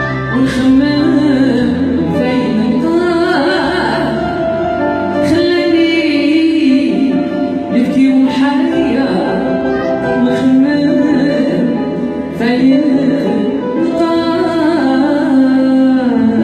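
A song playing as background music: a singing voice over instrumental accompaniment.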